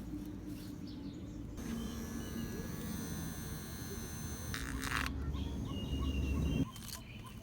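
Small DC motor running with a steady buzz, switched on about a second and a half in and cutting off suddenly near the end.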